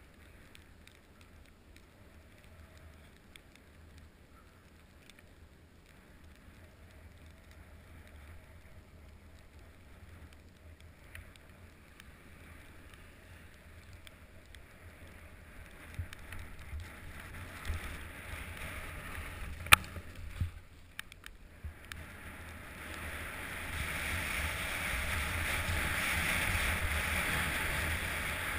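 Jack jumper's ski sliding downhill over snow: a faint hiss at first that grows much louder over the second half as speed builds, with one sharp knock about twenty seconds in.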